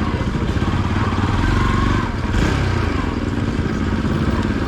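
Motorcycle engine running steadily under way, a continuous low throb.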